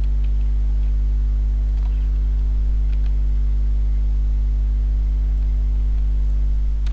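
Steady electrical mains hum with a low buzzing stack of overtones, picked up by the recording microphone, with a few faint clicks.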